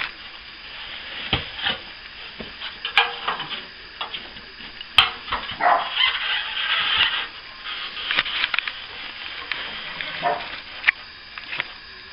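Plastering tools scraping and tapping irregularly on a repair surface, with scattered sharp clicks and knocks.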